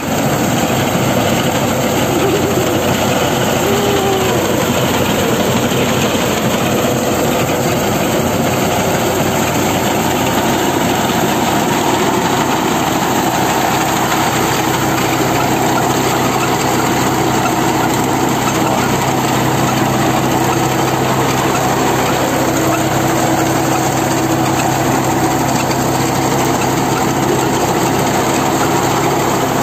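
Tractor engine running steadily under load while a front-mounted vertical-conveyor wheat reaper works, its cutter bar and conveyor running as it cuts standing wheat.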